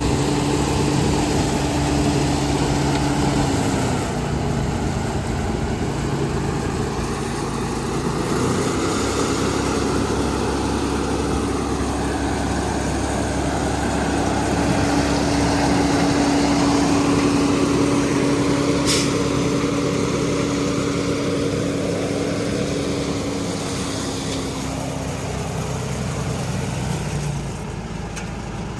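Heavy diesel road machinery running steadily, its engine note dropping about four seconds in, picking up again around eight seconds and easing off near the end.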